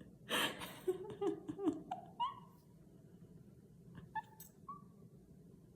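A woman laughing quietly under her breath in a deliberately hushed laughter-yoga 'library laughter': a breathy burst, a few short held-in chuckles, then small high squeaky giggles about two and four seconds in.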